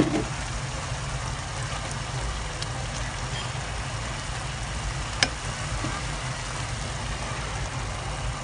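A pan of tomato sauce simmering over a steady low hum. Two sharp clicks of a utensil against the pan, one at the very start and one about five seconds in.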